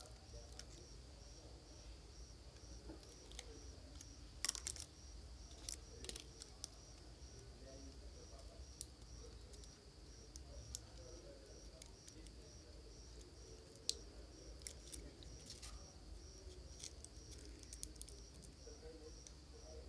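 Quiet workbench handling of a phone battery and its small circuit board: scattered faint clicks and taps, the loudest about four and a half and fourteen seconds in, over a low steady hum. A faint high chirp repeats about twice a second throughout.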